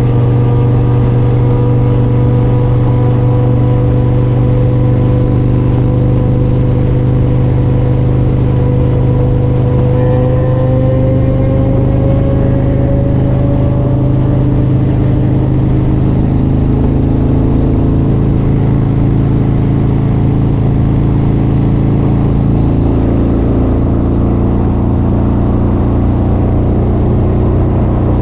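Motorcycle engine running at a steady, even pitch, with a higher whine that rises slightly about ten seconds in.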